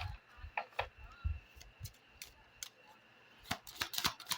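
A deck of oracle cards being shuffled by hand: scattered sharp card flicks and snaps, coming in a quick run near the end.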